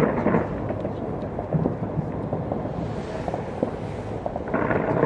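Aerial fireworks going off in quick succession: a continuous rumble of booms with sharp pops and crackling. There is a louder burst right at the start and another near the end.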